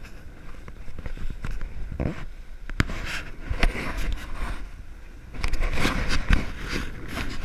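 Wind rushing over a handheld action camera's microphone aboard a heeling sailing yacht, with sharp knocks and scrapes as the camera is moved about. It gets louder and rougher from about five seconds in.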